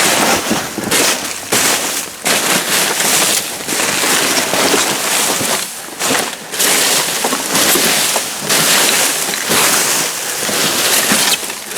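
Trash being rummaged through by hand in a dumpster: continuous loud rustling and crunching, with brief pauses every second or two.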